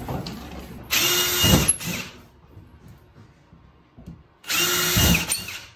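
Cordless drill with a small twist bit boring through a particleboard panel, in two short runs of about a second each, roughly three seconds apart, with a steady motor whine.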